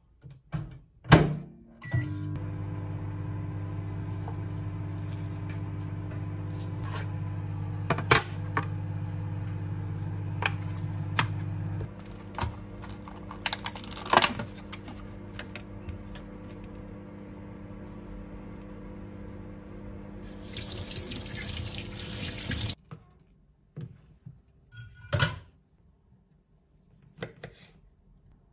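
Microwave oven running with a steady electrical hum, with clinks of dishes being washed in a stainless steel sink over it. Near the end a tap runs for about two seconds and all of it stops abruptly, followed by a few light knocks on a wooden chopping board.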